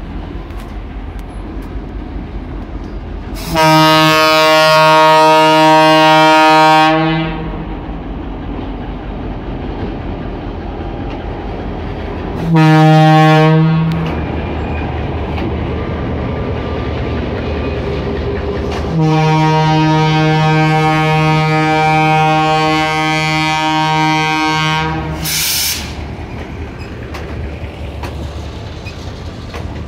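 GM EMD G22UB diesel locomotive pulling a ballast train past, its Wabco E2 air horn sounding three blasts: one of about three seconds early, a short one about halfway, and a long one of some six seconds. Between the blasts the locomotive's diesel engine runs steadily as the train rolls by.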